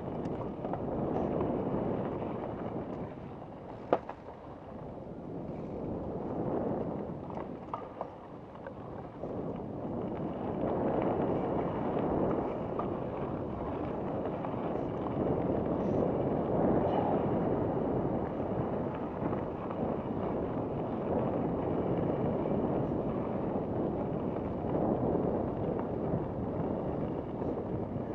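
Mountain bike rolling over a dirt singletrack, heard as a rushing of wind on the microphone and tyre noise that swells and eases, with a few sharp clicks and knocks from the bike over rough ground.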